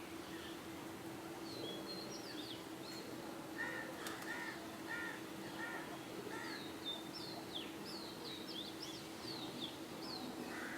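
Birds calling: a quick run of short calls, about two a second, in the middle, with high, quick chirps of smaller birds before and after, over a steady low hum.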